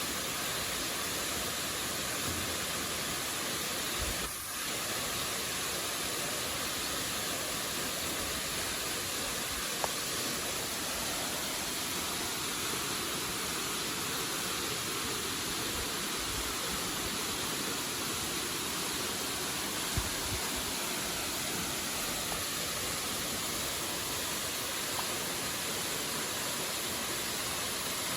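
Waterfall rushing: a steady, even wash of falling water, with a brief dip about four seconds in and a couple of faint clicks.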